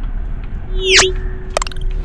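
Added sound effects from a subscribe-button overlay: a sweeping whoosh about a second in that settles into a held tone, then a short sharp click, over the steady road rumble of a car cabin.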